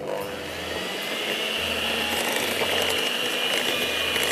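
Electric mixer switching on and running steadily, beating a cheesecake filling, with a high whine over the whir of its motor.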